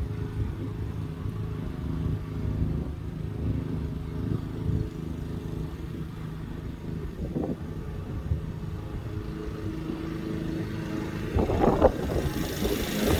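Lawn mower's small engine running steadily, with brief louder surges about seven seconds in and again near the end.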